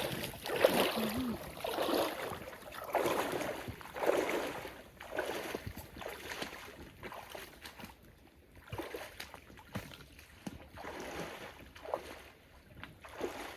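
Footsteps walking through snow, about one step a second, growing fainter in the second half.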